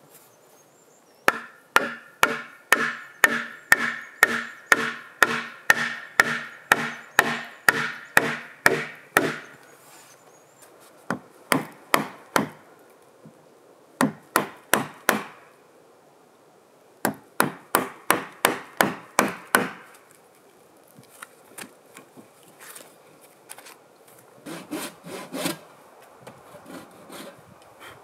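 Hand tool striking a wooden log in quick runs of about two to three blows a second, each hit ringing with a pitch from the wood. Near the end come a few softer, scattered knocks.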